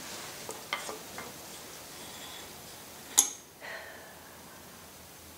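A few light metallic clicks as tools and engine parts are handled on a stripped engine block, then one sharp metal clink with a short ring about three seconds in, followed by a smaller knock.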